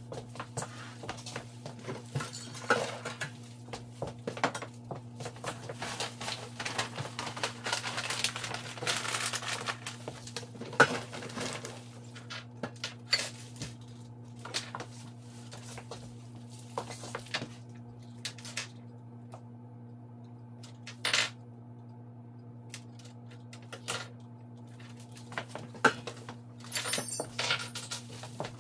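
Dishes and cutlery clinking and clattering as they are handled and set down, in irregular knocks, over a steady low hum.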